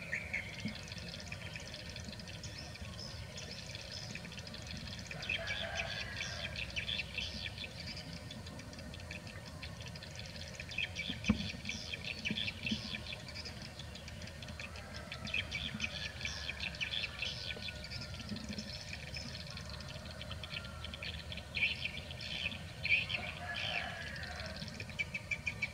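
Small birds chirping in repeated bursts of quick, high notes lasting a few seconds each, over a steady low outdoor rumble. There is a single sharp tap about eleven seconds in.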